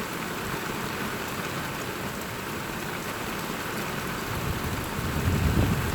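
Heavy rain falling steadily, an even hiss of rain. About four seconds in, a low, uneven rumble with gusty peaks builds up underneath.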